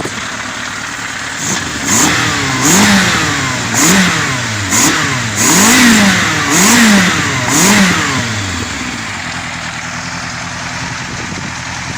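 Yamaha Thunder Ace inline-four motorcycle engine idling, then blipped about seven times in quick succession, each rev rising and dropping back, before it settles to a steady idle. The carburettors are freshly rebuilt and the engine picks up and returns to idle cleanly, sweet as a nut.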